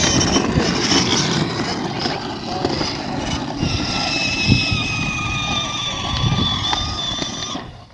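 A child's ride-on toy ATV driving along, its motor giving a steady high whine over the rumble of its wheels rolling.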